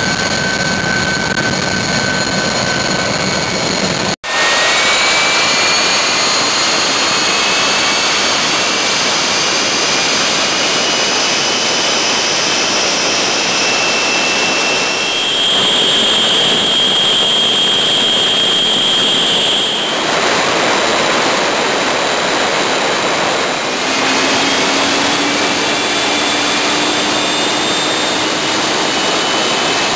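Westinghouse J34 turbojet on a test run after an overhaul: a loud, steady jet roar with a high turbine whine over it. The whine climbs slowly in pitch, holds as a strong high tone for a few seconds, then climbs again near the end. The sound cuts out for an instant about four seconds in.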